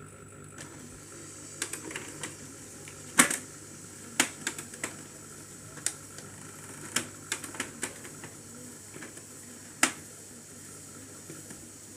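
HP LaserJet Pro M102A laser printer clicking and ticking irregularly, about a dozen sharp clicks with a faint steady whine underneath, as its mechanism stirs after the drum unit has been refitted.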